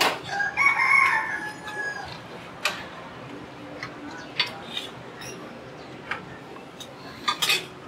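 A rooster crows once, one drawn-out call lasting about a second and a half, followed by a few scattered sharp clicks and knocks.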